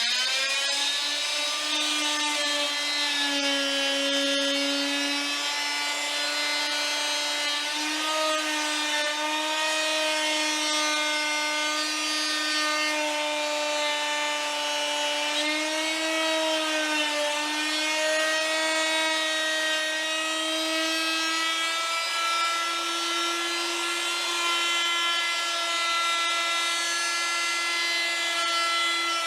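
Handheld wood router running at full speed on a pass cutting a spline slot across the chair's glued joint, with a steady high whine whose pitch dips slightly now and then as the bit takes load.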